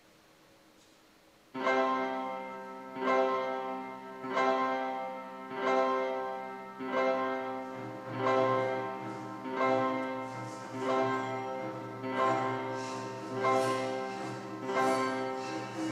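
Instrumental music begins about a second and a half in, led by piano, with a strong accented chord about every second and a quarter, each fading before the next.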